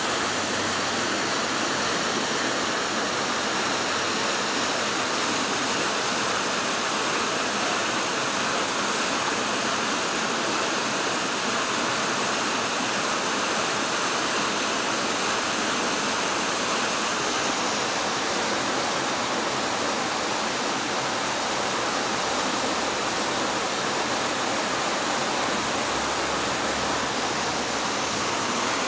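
Muddy floodwater of a river in spate, rushing steadily with a continuous heavy noise.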